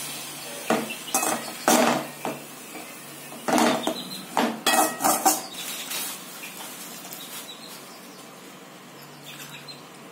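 Steel slotted spoon stirring and scraping grated carrots in a metal pan, clanking metal on metal about ten times in the first five seconds or so, then going quieter.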